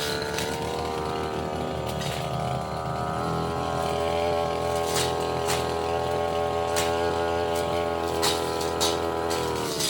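Petrol brush cutter engine running at high speed while cutting saplings and small roots, with scattered sharp clicks as the cutting head strikes wood and debris. The engine note drops near the end as the throttle eases off.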